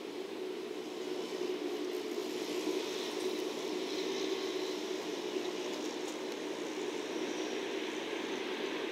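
Container freight train's wagons rolling along the track: a steady rumble that swells over the first couple of seconds and then holds.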